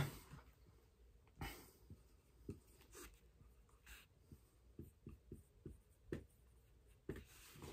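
Dry-erase marker writing on a whiteboard: faint, scattered short strokes, with a quicker run of strokes about five seconds in.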